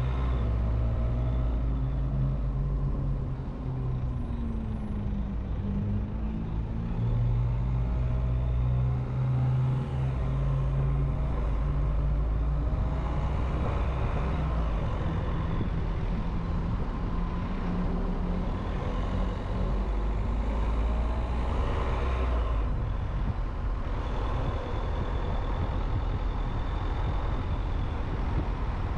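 Car driving, with the engine note rising and falling as it speeds up and slows, over a steady low road rumble.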